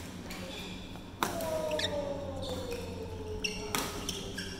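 Badminton rally: sharp racket hits on the shuttlecock, one about a second in and another near the end, with short squeaks of court shoes on the floor. After the loudest hit a ringing tone slowly falls in pitch, and the hall echoes.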